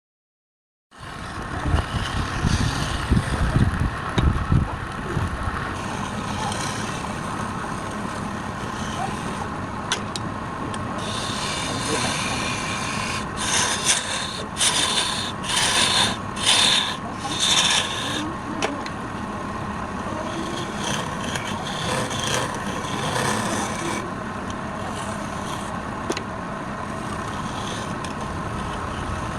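A wood lathe running with a steady hum while a turning tool scrapes and cuts the spinning wood. The sound starts abruptly after about a second of silence, and a run of harsher, separate scraping passes comes in the middle.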